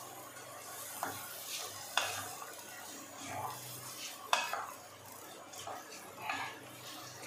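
Wooden spatula stirring rice in a non-stick pan, scraping through the rice and knocking sharply against the pan a few times.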